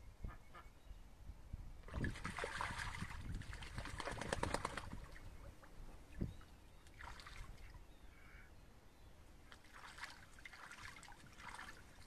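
Silver Appleyard ducks splashing as they bathe in a shallow pond, in bursts of water splashing and sloshing, the longest about two to five seconds in and shorter ones later.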